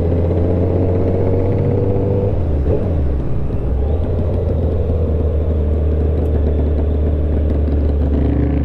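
Kawasaki ZX-10R sportbike engine running as the bike rolls along at low speed, under a steady low rumble. Its pitch climbs slightly, dips briefly about two and a half seconds in, then holds steady.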